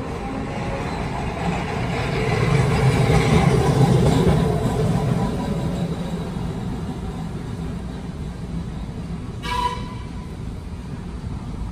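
TECO Line streetcar running past on its rails; the rumble swells, is loudest about four seconds in, and fades. A short, sharp toot sounds near the end.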